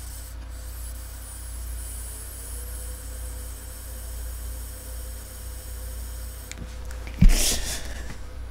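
A slow draw on a vape pen: a faint hiss and a faint steady tone over a steady low hum. About seven seconds in there is a sudden thump, then a short rush of breath as the vapour is let out.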